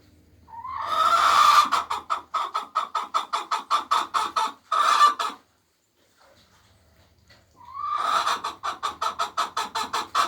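A hen cackling her egg song: two bouts, each opening with a drawn-out rising note and breaking into a fast run of loud clucks about five a second. The first bout ends in a long squawk about five seconds in, and the second begins about eight seconds in. This cackle is the call hens make around laying an egg.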